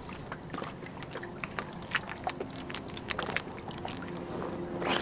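Water lapping around a sailboat's hull and an inflatable tender tied alongside, with scattered small irregular knocks and clicks as a rope line is handled in the tender.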